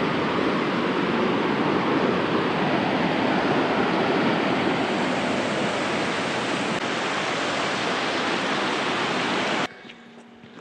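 Steady rushing of a mountain waterfall or stream, loud and even, cutting off suddenly near the end.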